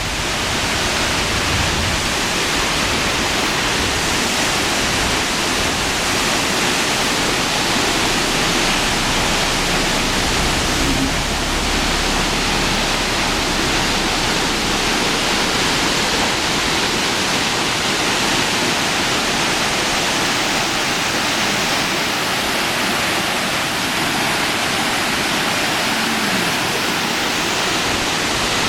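Waterfall splashing: a steady, even rush of falling water that doesn't let up.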